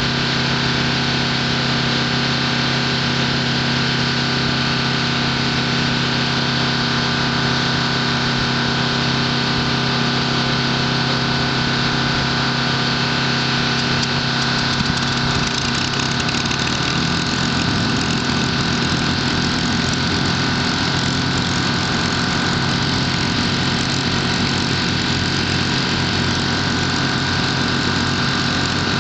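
A piston engine idling steadily, a constant low hum with a steady stack of tones. Its low tone changes slightly about halfway through.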